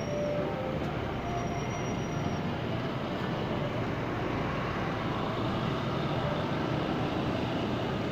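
Steady rumble of vehicle traffic, a continuous noise with no distinct events.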